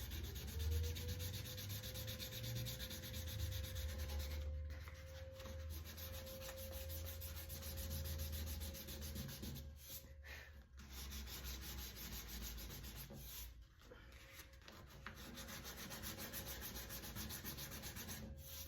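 A piece of 1000-grit sandpaper rubbed back and forth over the clear coat of a painted car wing, steady sanding with a few short pauses. It is smoothing down the remains of paint runs in the clear coat after their high spots were shaved off with a blade.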